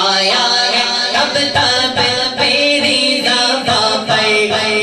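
A man singing a naat, a devotional praise poem for the Prophet, into a handheld microphone in a continuous, melodic voice.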